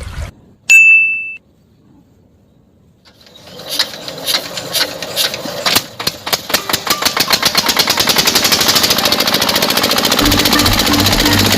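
A short ding, then a small motor-driven mechanism starting up: scattered clicks that quicken into a fast, steady mechanical clatter.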